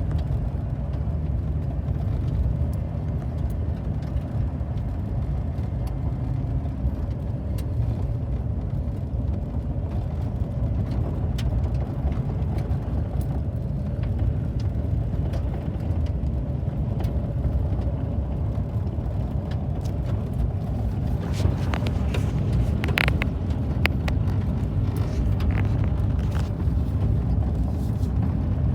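A car driving, a steady low rumble of engine and road noise. About three-quarters of the way through there is a short cluster of clicks and rattles.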